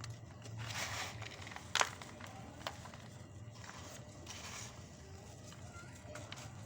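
Hard lumps of set pure cement being crushed and crumbling: irregular crunches, with one sharp crack about two seconds in, a smaller crack shortly after, and softer crumbling later on.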